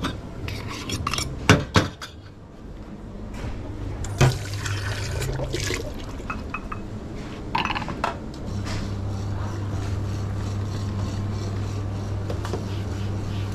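Cups, glassware and crockery clinking and liquid being poured while a coffee drink is made, then a steady low machine hum from about eight seconds in.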